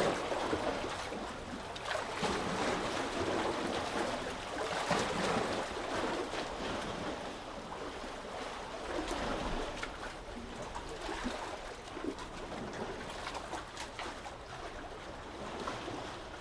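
Sea waves lapping and washing, a steady rush of water with many small splashes. It swells louder over the first several seconds, then eases off.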